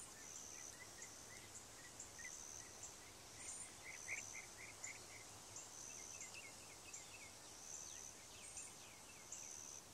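Faint outdoor ambience of chirping insects and birds: a short, high chirp repeats about once a second over softer, lower chirps.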